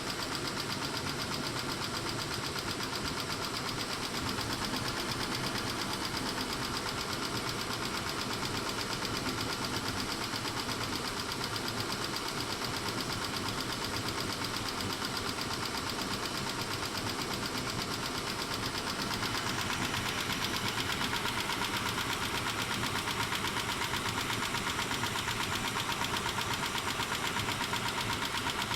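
Mitsubishi 6G72 V6 engine running with a rapid, even ticking from the valve train, the tapping the owner blames on the hydraulic lash adjusters (lifters) but suspects could be a tired engine. The sound grows a little louder and brighter about two-thirds of the way through.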